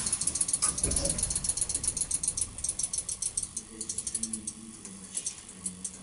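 Rapid mechanical clicking in a passenger lift cab, about ten ticks a second, ratchet-like. The ticks grow sparser and fainter after two or three seconds, and a faint low steady hum comes in midway.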